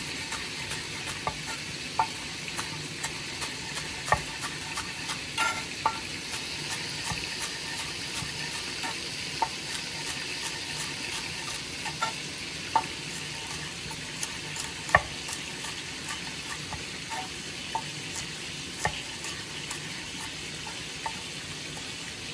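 Steady sizzle of chicken back frying in oil in a pan, with a chef's knife knocking irregularly on a wooden cutting board as green scallion is sliced.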